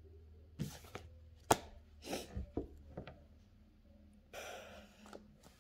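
Tarot cards being handled on a table: a few sharp taps and light knocks, the sharpest about one and a half seconds in, then a short rustle about four seconds in.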